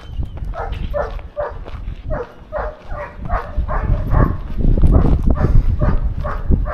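A dog barking over and over, about two or three barks a second, over heavy wind buffeting the microphone that grows louder in the second half.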